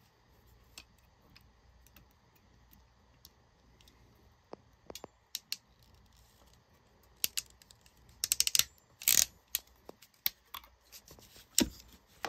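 Ratcheting crimping tool clicking as it crimps an insulated ring terminal onto a ground wire: scattered light clicks, then quick runs of ratchet clicks from about seven seconds in, and a single louder click near the end.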